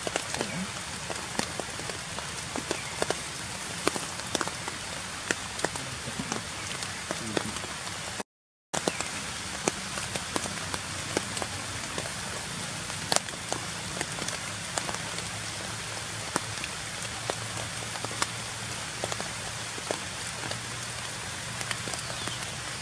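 Rain pattering on leaf litter and foliage: a steady hiss with many small, irregular taps. The sound cuts out completely for about half a second around eight seconds in.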